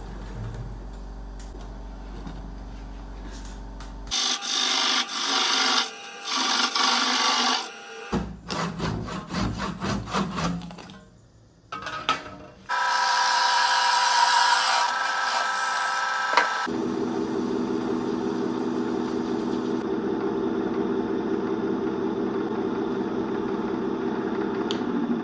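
A handsaw cutting back and forth through the waste wood at the base of a turned vase, in quick rasping strokes from about four seconds in. Past the middle a steady, humming wood lathe takes over.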